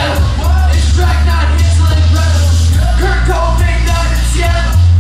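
Loud live music with heavy bass, with a man yelling vocals into a microphone over it through the club's PA.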